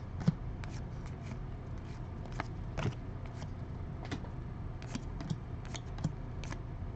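Trading cards handled and flipped through a stack by hand: irregular soft clicks and slaps of card edges, over a steady low hum.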